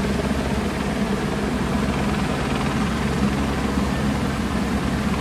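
Helicopter flying low overhead, its rotor and engine running steadily with a fast, even beat.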